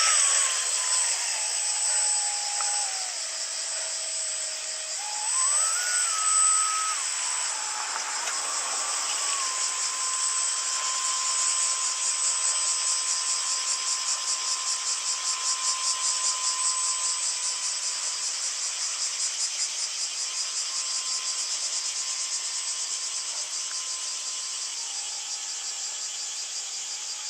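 Motor whine from an RC jetfoil model, a thin tone that steps up and down in pitch with the throttle in the first ten seconds and then holds steady, over a constant high hiss.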